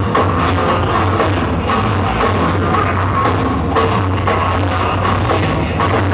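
Live rock band playing loudly, with bass guitar and drum kit and regular drum hits.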